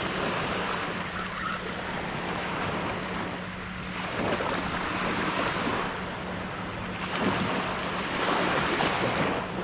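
Surf breaking and washing on a beach, swelling and easing several times, with wind on the microphone and a faint steady low hum underneath.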